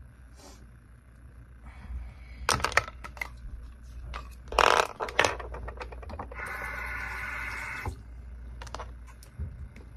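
Plastic toothbrush case, toothbrush and toothpaste tube handled on a desk: a run of clacks and knocks, loudest about halfway through. A steady buzz follows for about a second and a half, then a few more light clicks.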